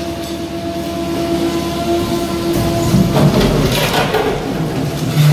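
DEMAREC hydraulic demolition shear at work on a reinforced concrete slab: the machine runs with a steady whine, then about three seconds in the jaws crunch into the concrete with cracking and crackling, followed by a lower rumble.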